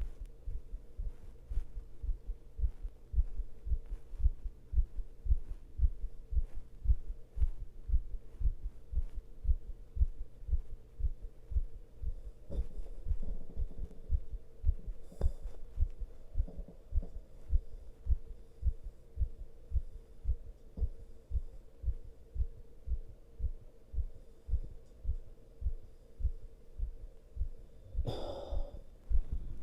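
A man's heartbeat, pounding in a steady, quick run of deep thuds, with heavy breathing heard faintly around the middle and loudest shortly before the end.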